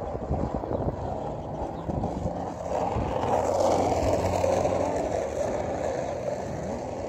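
A car passes along the road: its tyre and engine noise swells about halfway through and fades toward the end, over a low wind rumble on the microphone.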